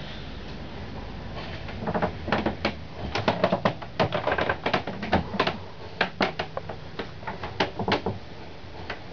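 Irregular clicks and knocks, several a second, over a low steady hum.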